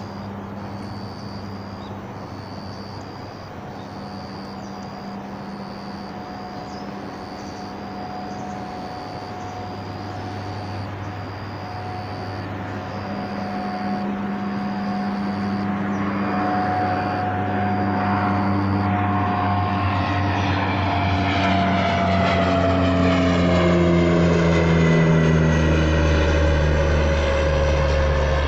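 A propeller aircraft's engine droning overhead, growing steadily louder, with its pitch falling over the last ten seconds or so as it passes.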